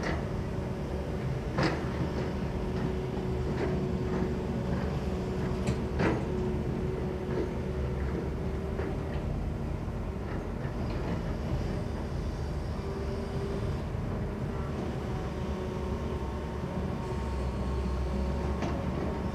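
Kobelco SK200 long-reach excavator running steadily as it digs in rocky ground, with a few sharp clanks, the loudest about two and six seconds in, as the bucket works against stones.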